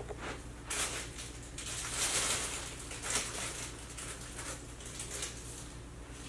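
Intermittent soft rustling and handling noises in short bursts over a steady low hum.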